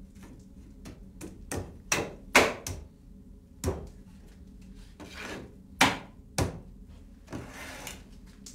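Wood-on-wood knocks, about seven, irregular and sharp, the loudest about two and a half seconds in, as a window-sash stile is driven onto its mortise-and-tenon joints in a dry fit. Between the knocks come a few short scraping sounds of wooden parts sliding together.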